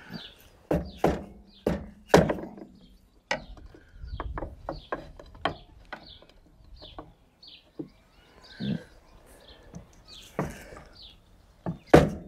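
Hammer blows on a wooden block, tapping a VW T4's front bumper forward off its side mounting brackets. The irregular knocks are hardest in the first two seconds or so, lighter in the middle, and hard again twice near the end. Birds chirp in the background.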